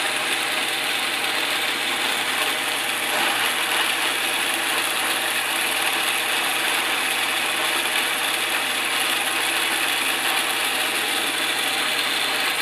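Milling machine running with a Volstro rotary milling head, a half-inch cutter taking a cut as the head rotates and feeds. The sound is a steady mechanical whine made of several steady tones over a dense hiss.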